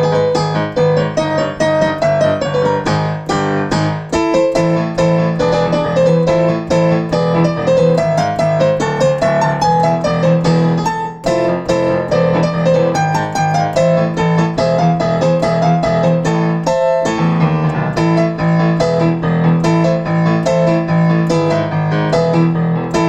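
Solo piano playing a fast, crisply articulated pop arrangement: rapid repeated chords and melody over a held low bass note, with short breaks about 4, 11 and 17 seconds in.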